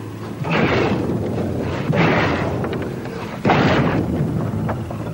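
Shovels digging into loose earth and pine straw: three heavy strokes about a second and a half apart, over a low steady hum.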